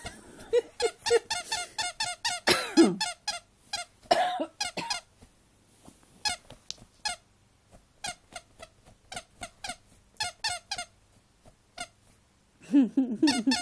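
A dog's claws scratching and digging rapidly at a sheet, each stroke a short squeaky scrape, in bursts of several strokes a second with brief pauses between. A short sound with a falling pitch comes about two and a half seconds in.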